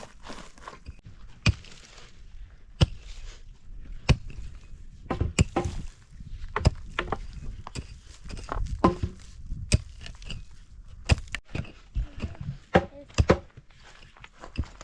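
A series of sharp, irregular knocks or impacts, roughly one a second, like something being struck or chopped.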